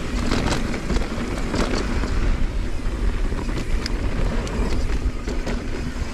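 Wind buffeting the camera microphone: a steady low rumble with a hiss above it and a few short clatters in the first two seconds.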